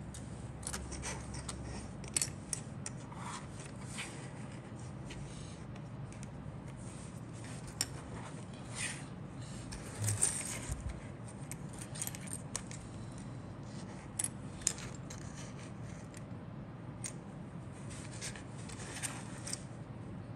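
Small plastic model kit parts clicking, tapping and scraping as they are handled and set down on a cutting mat, in scattered irregular bursts over a steady low hum.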